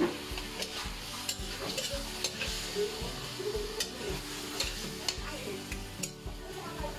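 Chicken pieces sizzling in their marinade in a wok while a metal spatula stirs and scrapes the pan. The frying hiss is steady, with short scrapes and clinks of the spatula every half second or so.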